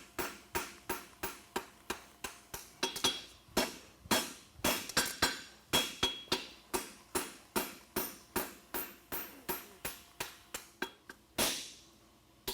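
A farrier's hammer striking hot steel bar stock on an anvil in a steady rhythm, about three ringing blows a second, as the heel of a hind toe-cap horseshoe is forged and the material upset. The blows stop about eleven seconds in, followed by one duller strike near the end.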